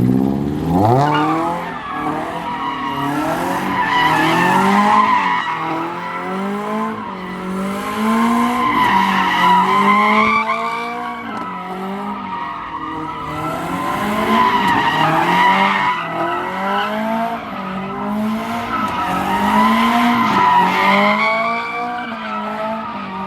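Car engine revving in repeated rises and falls every two to three seconds, with tires squealing and skidding on pavement.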